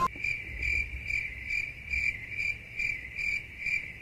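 Cricket chirping, one steady high chirp repeated evenly about twice a second: the comic 'awkward silence' cricket sound effect.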